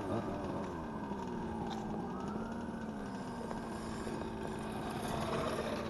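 1/5-scale RC cars running at a distance: a steady motor buzz, with a fainter whine that glides down in pitch in the second half.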